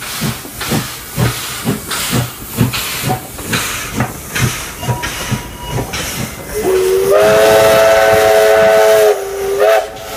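Steam locomotive 3642, a NSW 36 class 4-6-0, moving slowly with rhythmic exhaust beats, about two a second. About six and a half seconds in, its chime whistle sounds a long blast of several tones that slides up slightly as it opens, then a short toot near the end.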